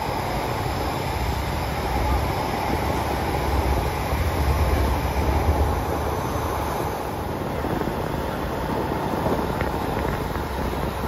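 Inside a PESA Link diesel multiple unit pulling out of a station: the diesel engine and running gear make a steady rumble, and the low rumble swells about four to six seconds in.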